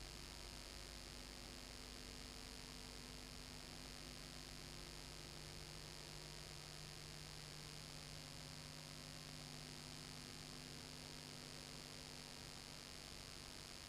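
Faint steady electrical hum with a low hiss and nothing else: the empty sound track of a silent cine-film transfer.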